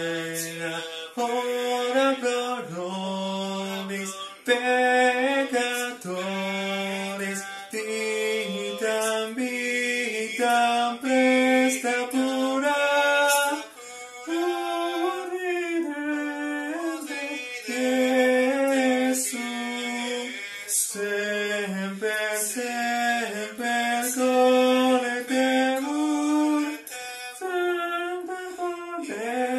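A man singing alone and unaccompanied, a slow melody of long held notes that step up and down in pitch, with brief breaths between phrases.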